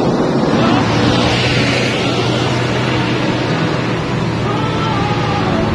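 A vehicle running steadily under a loud, even rushing of wind and road noise, with a low engine hum.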